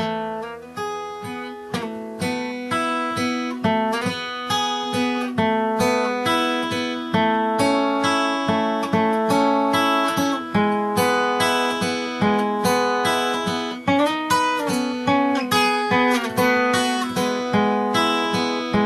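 Acoustic guitar in open D tuning, fingerpicked on the treble strings only in a steady 4/4 picking pattern while moving through chords, a constant stream of plucked notes with no bass-string rhythm yet.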